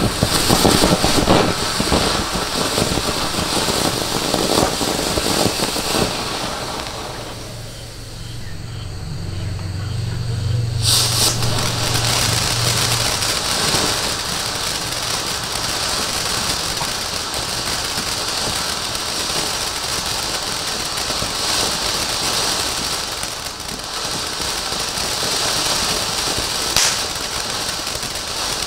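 Supreme 'Candy Box' firework fountain burning. It crackles densely for the first six seconds or so, then settles into a steady hissing spray of sparks, with a couple of sharp pops.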